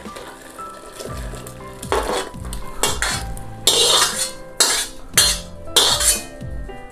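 Pork and braising broth pouring from an iron wok into a ceramic clay pot, then a steel ladle scraping and clanking against the wok about six times as the last pieces are pushed out. Background music plays throughout.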